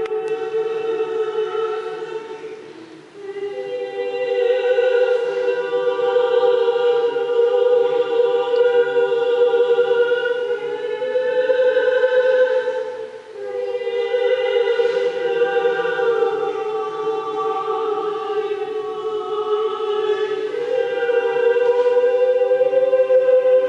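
A choir singing slow, held chords, pausing briefly about three seconds in and again after about thirteen seconds.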